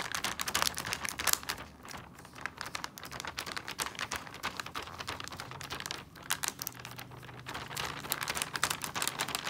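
The plastic zip-lock seal of a vacuum storage bag being pressed shut by hand: a quick run of small clicks and crackles, with the clear plastic bag crinkling.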